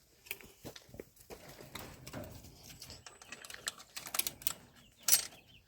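Chickens scratching and pecking at the coop floor and bedding: irregular light taps and scratches, with one sharper tap about five seconds in.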